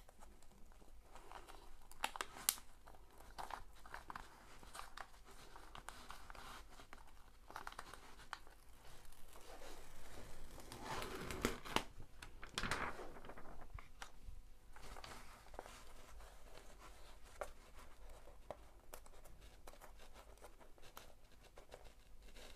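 Protective release paper being peeled off the sticky surface of a diamond painting canvas: irregular crackling and tearing as the glue lets go, with rustling of the paper. It grows louder for a few seconds around the middle.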